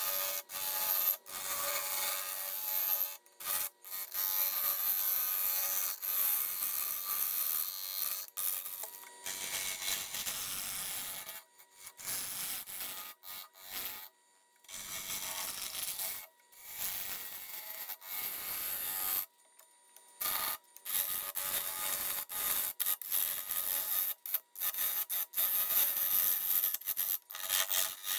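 Tool scraping against wood on a woodturning lathe: a scraping hiss with a faint steady tone underneath, stopping and starting abruptly every few seconds.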